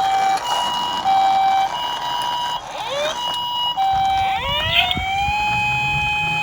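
Ambulance siren alternating between two tones, high and low, about every half second. About four seconds in, a police car siren wails upward and holds a steady pitch. A low rumble starts at about the same time.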